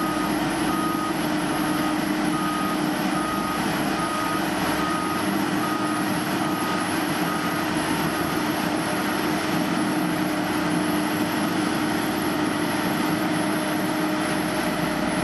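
Truck-mounted conveyor slinger's engine running steadily with a continuous hum, while a reversing alarm beeps a little more than once a second and stops about halfway through.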